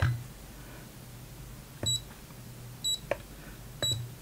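EEVblog BM235 digital multimeter beeping three times, about a second apart: short high-pitched beeps as its buttons are pressed to set up a min/max voltage capture.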